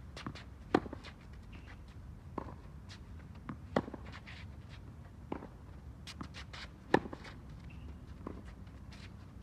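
Tennis racket striking the ball three times, about three seconds apart, during a baseline groundstroke rally. Lighter taps and shoe scuffs on the hard court sound between the hits.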